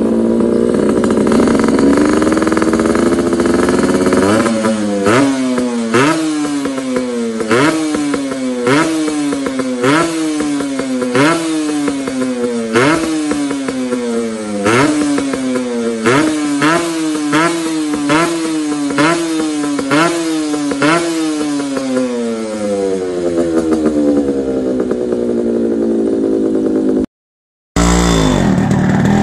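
Suzuki AX100's two-stroke single-cylinder engine with an expansion-chamber exhaust, idling and then revved in quick throttle blips, one after another, well over a dozen times, before dropping back to a steady idle. Near the end the sound breaks off and another two-stroke engine is heard running.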